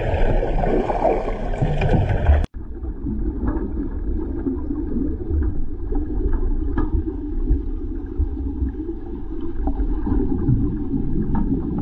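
Underwater ambient noise picked up by a submerged camera: a steady low rumbling wash of water. It cuts off abruptly about two and a half seconds in and gives way to a similar rumble with faint ticks.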